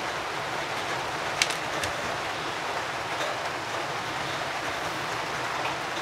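Steady hiss, with a few light clicks from the metal swivels and beads of a fishing rig as it is handled and checked over.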